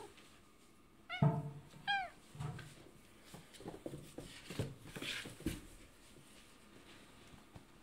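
Domestic cat meowing twice in quick succession about a second in, two short calls, followed by a few seconds of soft irregular scuffling and knocks.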